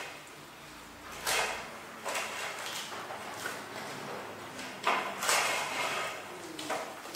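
Handling noise from fresh lotus seed pods being moved and set down on a ceramic plate, in several short rustling, scraping bursts, the loudest about five seconds in.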